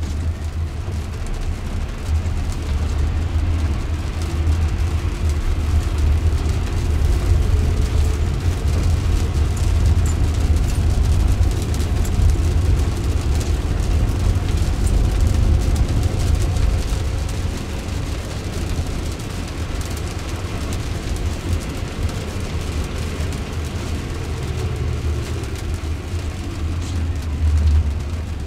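Road noise inside the cabin of a Jaguar I-Pace electric car driving on a wet road in rain: a steady low rumble with tyre hiss. It grows louder through the middle and eases off about two-thirds of the way in.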